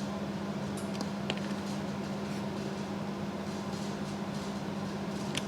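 Steady low machine hum with a few faint light ticks scattered through it.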